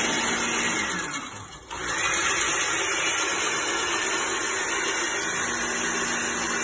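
Countertop blender motor running at speed, blending hollandaise sauce while melted butter is poured in through the lid opening. The motor slows about a second in and picks up again just under two seconds in, then runs steadily.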